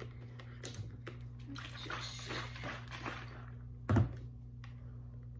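Almond milk carton and glass jar being handled on a counter: a rustling hiss for about a second and a half midway through, then one dull thunk about four seconds in.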